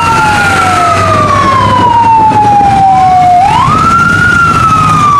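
Fire-engine siren wailing: two overlapping tones, each sweeping up quickly and then sliding slowly down, in a cycle of about four seconds.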